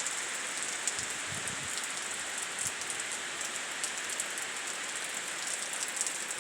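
Thunderstorm rain falling steadily as an even hiss, with scattered drips from the roof edge ticking through it.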